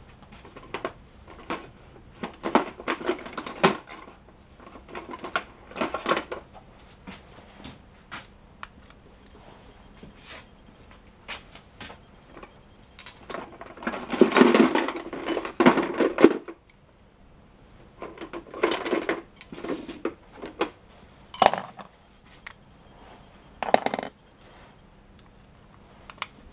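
Metal tools clinking and clattering in irregular bursts. The longest clatter comes around the middle, followed by two single sharp clanks later on.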